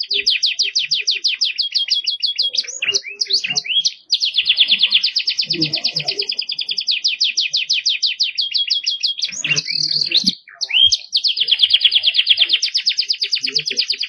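Domestic canary singing a long song of fast trilled rolls, with a few sliding notes before short breaks about four and eleven seconds in.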